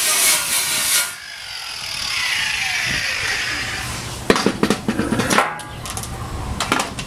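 Electric drill with a large Silver & Deming bit grinding through the steel of a tractor loader bucket. It stops about a second in and the motor winds down in a falling whine, followed by a series of metal clanks and knocks.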